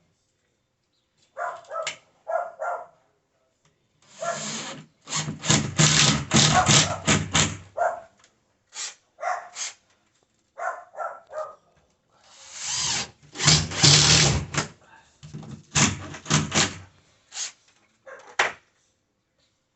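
Power drill running in two bursts of a few seconds each, with a dog barking in short bursts before, between and after them.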